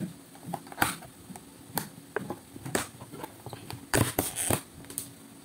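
Clear plastic takeout food container being picked up and handled: scattered light clicks and knocks of plastic, with a louder clatter about four seconds in.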